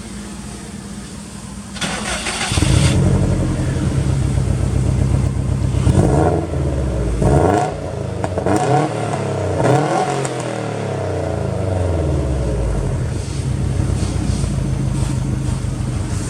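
Subaru Impreza GDB's turbocharged flat-four running through an aftermarket Fujitsubo exhaust, idling and then blipped several times, each rev rising and falling in pitch, before settling back to idle.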